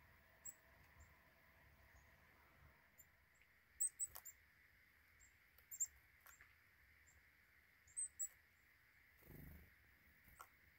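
Faint, short high chirps of black-capped chickadees around a feeder, scattered through, some in quick pairs, with a few soft clicks and a brief low rush about nine seconds in.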